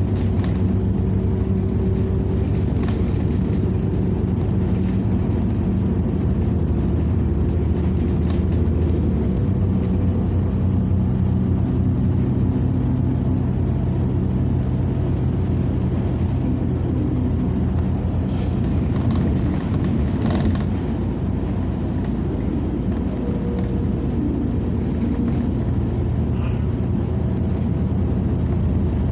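Inside a New Flyer XN40 natural-gas city bus on the move: a steady engine and drivetrain drone over road rumble, its pitch stepping up and down a few times as the bus changes speed.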